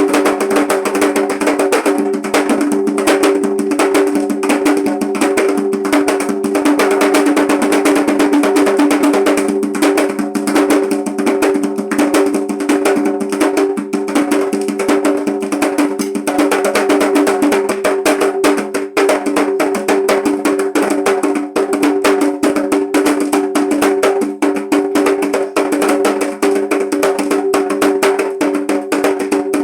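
Atabaque hand drums played in a fast, dense rhythm, with a steady ringing pitch under the strokes.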